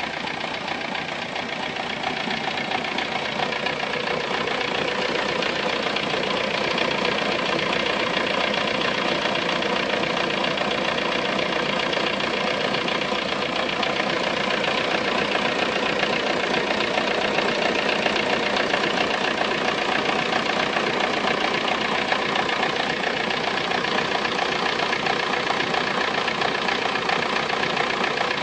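Volkswagen Golf 3 engine running steadily at idle, the odd engine noise the owner sent in to be identified. It gets a little louder over the first few seconds, then holds steady.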